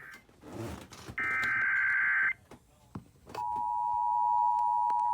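Emergency Alert System SAME header: a harsh, buzzy burst of digital data tones lasting about a second. After a short pause a steady, loud single-pitched alert tone begins, the attention signal that announces a warning.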